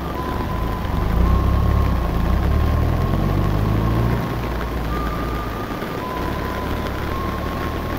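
A vehicle engine running, swelling and rising in pitch for a few seconds before settling back, with a thin steady whine above it that shifts between two pitches.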